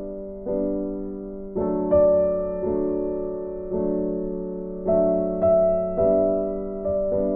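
Background piano music: gentle chords struck and left to fade, a new one about every half second to a second.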